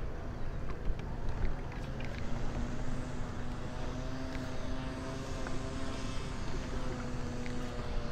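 A distant engine drones steadily over low wind and water noise, coming in about two seconds in and fading near the end.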